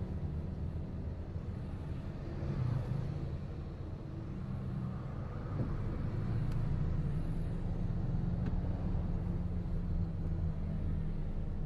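Motor vehicle engine running with a low, steady rumble.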